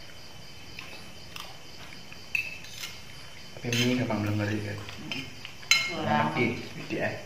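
Spoons and forks clinking and scraping on plates while people eat, with a few sharp clinks in the second half, one louder than the rest.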